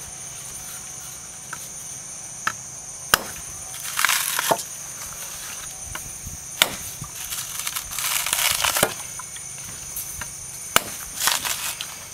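Machete blade chopping into a coconut's fibrous husk: a few sharp single chops, and three longer rasping tears as husk sections are pried and ripped away from the nut.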